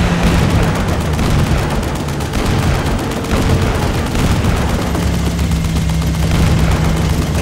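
Cartoon sound effect of rapid machine-gun fire from a police monster truck's roof-mounted gun, with blasts as the shots hit, over a steady low hum.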